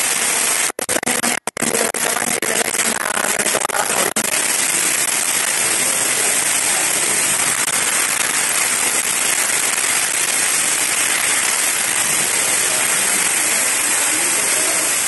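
Heavy rain pouring down: a dense, steady hiss with a crackling patter. The sound briefly cuts out twice about a second in.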